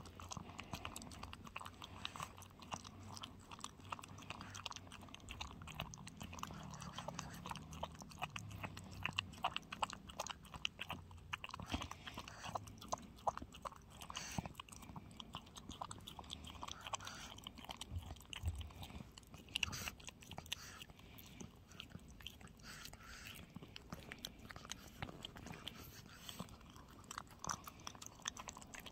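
Small dog eating wet chicken porridge from a bowl: a fast, irregular run of small wet chewing and smacking clicks.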